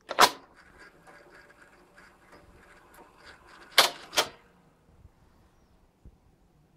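Sanyo Betacord VTC9300PN top-loading Betamax deck's mechanism: a loud clack as the cassette holder is pushed down, then a few seconds of faint mechanical ticking and whirring. Two more loud clacks follow close together a little before the middle.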